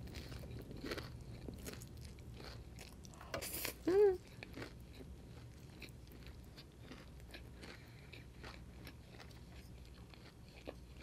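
Close-miked chewing of stir-fried egg noodles: soft wet mouth clicks and light crunching. About three and a half seconds in there is a louder slurp followed by a short voiced 'mm'.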